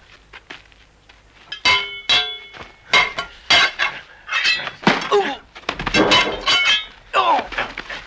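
Metal blades clashing in a fast series of strikes, many leaving a short metallic ring, mixed with shouts and grunts of a struggle.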